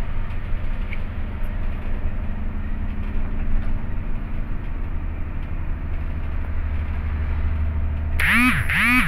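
Coach bus running on the road, a steady engine and road rumble heard from inside the bus. Near the end a horn sounds twice in quick succession, each short blast rising and then falling in pitch, louder than the rumble.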